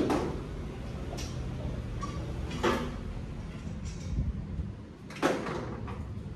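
A few sharp metal clanks and knocks, seconds apart, as a long-tube exhaust header is worked into place in a car's engine bay; the first clank is the loudest.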